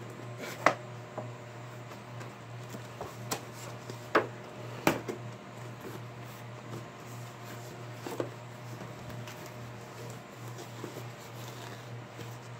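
Cardboard box and packaging handled and tugged at while a boxed item is worked out of a tight fit, with a handful of sharp knocks and clicks, the loudest just under a second in.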